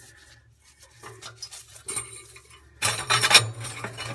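Perforated metal secondary-air tubes of a wood stove clinking and scraping against the firebox's metal channel as they are lifted toward their mounting holes. Scattered light clicks at first, then a louder, busier clatter from about three seconds in.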